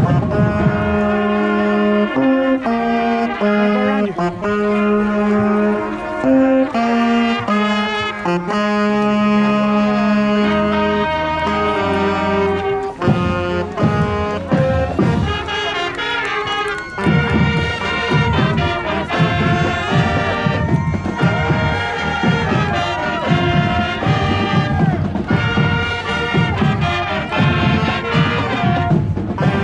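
High school marching band playing, with brass carrying held notes. Drum hits grow heavier about halfway through.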